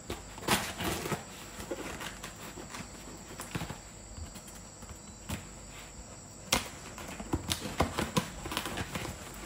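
A knife blade cutting and scraping through packing tape on a cardboard box, heard as scratchy rasps and sharp taps, with a burst of them about half a second in and a cluster in the second half.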